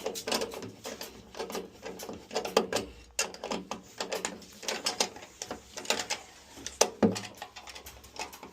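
Irregular metallic clicks and clanks of hand tools tightening the bolts on a furnace panel.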